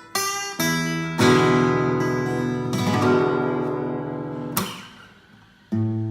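Morris W25 acoustic guitar played solo: a chord is plucked, then fuller strummed chords ring out. A sharp strum about four and a half seconds in fades almost to nothing before a new chord starts near the end.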